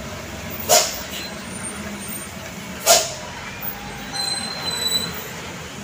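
Truck's air brakes giving two short hisses about two seconds apart, over the steady low running of its diesel engine.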